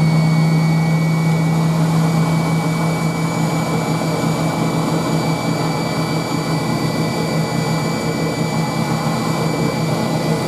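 A 1968 Hoover Spinarinse 3012A spin dryer running at speed in a rinse spin, its motor and pump making a steady loud hum with a thin high whine, while the pump drives rinse water out through the drain hose.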